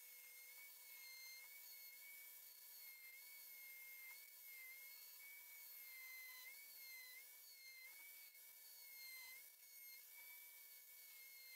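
Mini rotary tool with a mounted grinding stone spinning at high speed against an iron nail, grinding it down. A faint, steady high whine that dips briefly in pitch several times as the stone bears on the nail.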